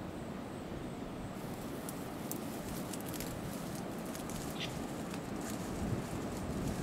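Faint rustling and light crackles in dry grass over a steady outdoor hiss.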